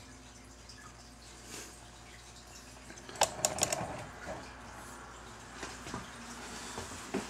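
Steady low hum of room tone, broken about three seconds in by a quick run of four sharp clicks, with one more click near the end.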